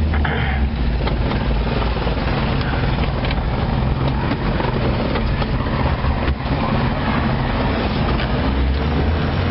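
A car's engine and tyres running steadily, heard from inside the cab while driving slowly on a wet road, with a low rumble and occasional sharp taps.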